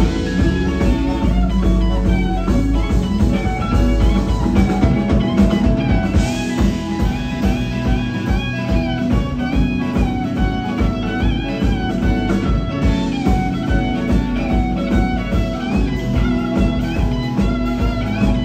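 Live blues-rock band playing: electric guitar over Nord keyboard and drum kit, with bending guitar notes above a steady beat.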